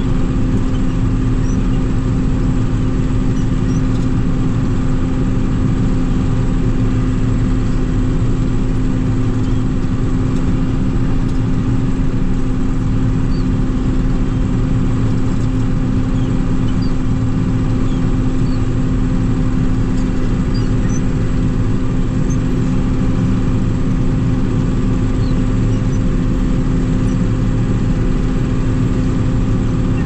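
Combine harvester's diesel engine running at a constant speed, a steady hum that holds one pitch with no revving or breaks.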